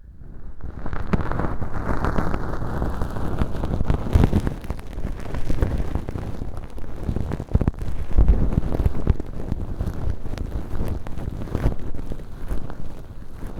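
Feather-tufted earpick (bonten) brushing inside a mock ear canal lined with velcro and packed with dry, flaky fake earwax, heard close up: a dense, scratchy rustle full of small crackles and clicks. It starts about half a second in and goes on without a break.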